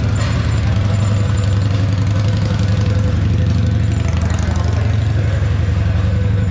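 An engine running steadily at idle, a loud, even low hum that does not change.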